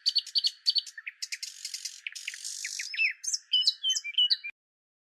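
Birds chirping and whistling in a rapid run of short calls, thin with no low end, cutting off abruptly about four and a half seconds in.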